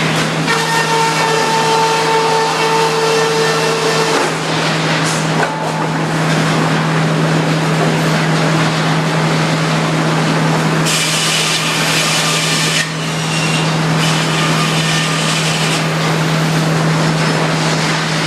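Sawmill running and sawing maple lumber: a steady low machine hum under dense cutting noise. A higher-pitched whine is held for the first few seconds, and a harsher, brighter cutting sound comes for about two seconds around the middle.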